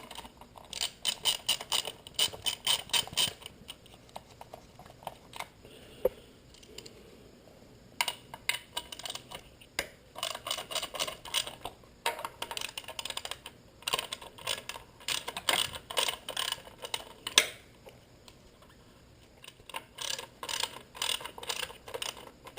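Socket ratchet wrench clicking as bolts are backed out, in runs of quick clicks lasting one to three seconds with short pauses between.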